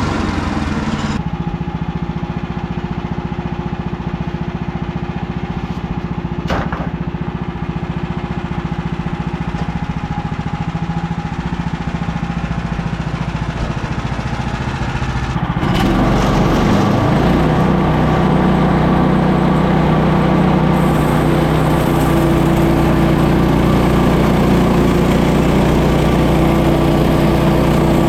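Woodland Mills HM130 Max band sawmill's gas engine running steadily. About halfway through it grows louder and rougher, with a hiss spread across the range.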